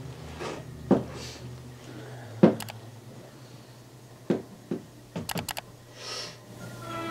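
A few separate sharp clicks and knocks over a low steady hum, the loudest about two and a half seconds in, with a quick run of clicks about five seconds in and a soft hiss at about six seconds.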